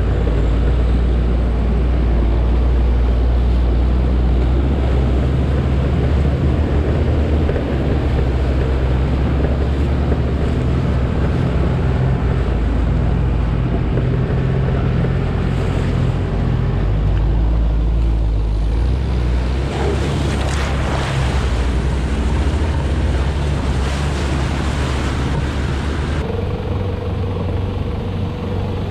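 An off-road 4x4's engine drones steadily at low revs while it drives through water-filled ruts, with water splashing and rushing under the tyres. The splashing grows stronger for several seconds about two-thirds of the way through.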